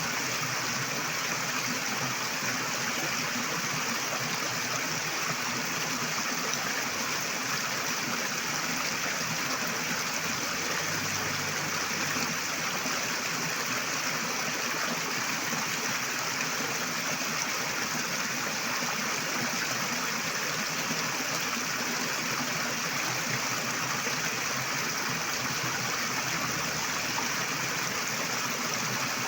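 River water flowing steadily over rocks, a continuous even rush with no change throughout.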